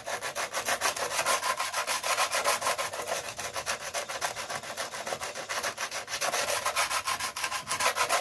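Sandpaper rubbing over a van floor in quick, repeated back-and-forth strokes, a steady rasping that smooths the floor ready for primer.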